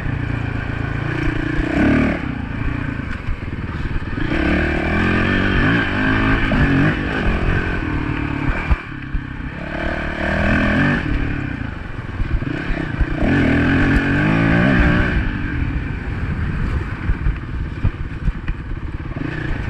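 Honda dirt bike engine under way on a dirt trail, its pitch rising and falling over and over as the throttle is opened and rolled off.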